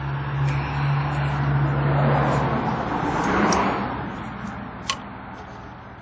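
Light clicks from a removed Toyota VVT oil control valve solenoid as a 12 V test lead is touched to its terminal, with one sharper click about five seconds in. Underneath, a steady low hum stops about halfway, and a rushing noise swells and fades over a few seconds.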